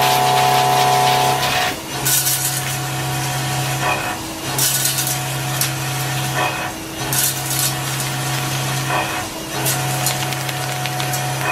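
CNC milling noise from an end mill cutting steel: a steady low hum that drops out briefly about every two and a half seconds, each time followed by a short burst of high hiss.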